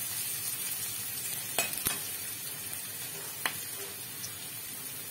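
Chopped onions sizzling in a little hot oil in a pan. Three sharp clicks come through it, two close together about one and a half seconds in and one about three and a half seconds in.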